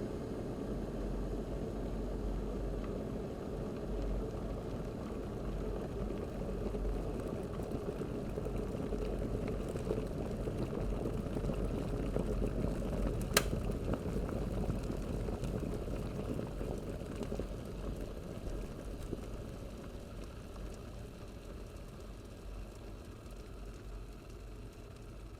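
Electric kettle boiling with a dense rumbling bubble. About halfway through there is one sharp click, typical of the kettle's automatic switch-off, and after it the boiling slowly dies down.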